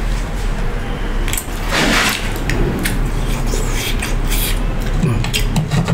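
Close-miked chewing and mouth clicks from a person eating fried chicken, with a brief breathy rush about two seconds in. A steady low electrical hum lies underneath.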